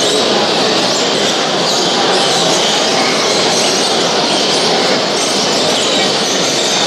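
Steady, dense din of many caged birds chirping and singing together, with a murmur of people.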